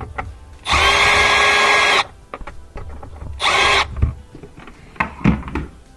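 Power drill running twice, a steady whir of over a second and then a short burst, driving the screw of the hose clamp on the dishwasher drain hose at the garbage disposer, with small knocks of handling between.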